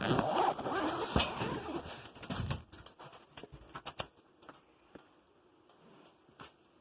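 Rustling and handling of a guitar's gig bag for about two and a half seconds, then a few light clicks and taps before it goes quiet.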